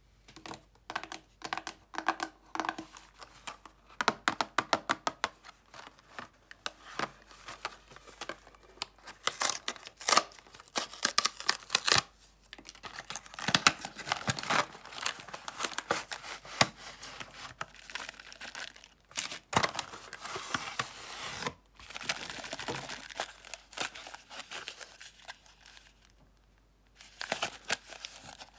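Cardboard candy box being torn and pried open by hand, close up: tearing, scraping and rustling of the card with sharp clicks, including a quick run of clicks about four seconds in. Near the end a clear plastic tray crackles and clicks as it is handled.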